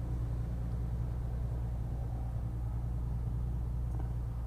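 A BMW's engine idling, heard as a steady low hum inside the car's cabin, with a faint click near the end.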